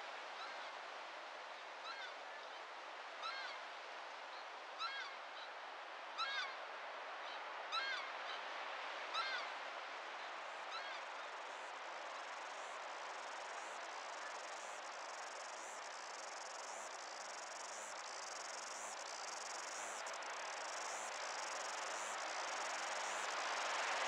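A bird calling over a steady rushing background: about eight short calls, roughly a second and a half apart, that grow louder and then fade over the first ten seconds or so. A faint, regular high ticking follows about once a second, and the rushing grows louder near the end.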